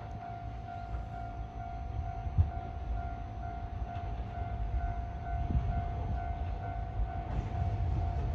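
Yokkaichi Asunarou Railway 260 series narrow-gauge train rumbling as it comes in to stop, growing louder, with a couple of heavier thumps from the wheels. A steady, evenly repeating electronic ding sounds over it throughout.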